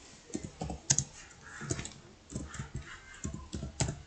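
Typing on a computer keyboard: a run of quick, irregular key clicks as a short phrase is typed.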